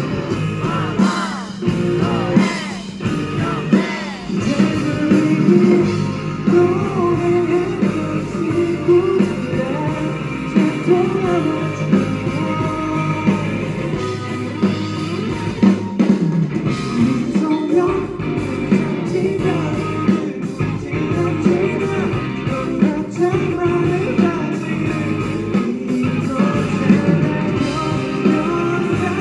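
A live rock band playing with electric guitar while a singer sings the melody over it.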